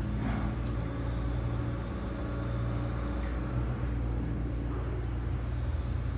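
Steady low mechanical hum of running machinery, with a few brief faint noises over it.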